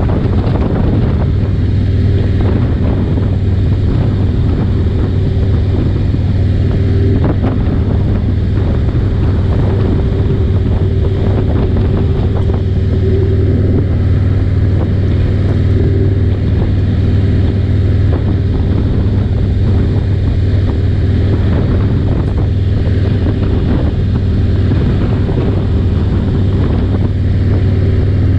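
Harley-Davidson Road King's V-twin engine running steadily at highway cruising speed, with wind noise on the microphone.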